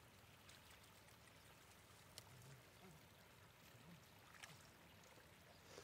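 Near silence: faint splashing of shallow muddy water as fish are grabbed by hand, with a few soft clicks.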